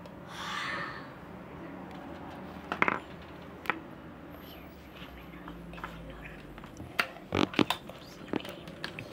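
A short breathy whisper about half a second in, then scattered sharp clicks and taps, most of them close together near the end.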